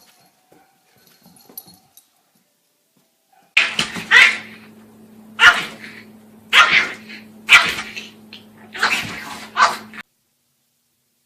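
A dog barking and yipping: five loud calls over about six seconds, starting a few seconds in, over a steady low hum that stops abruptly with them.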